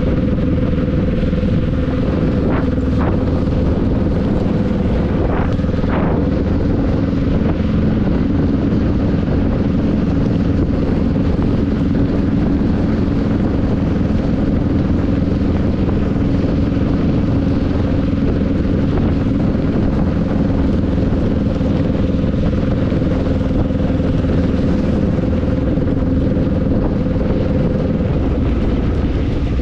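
Motorbike ride in the rain: the engine runs at a steady speed under dense wind and road noise, with a few short clicks in the first six seconds.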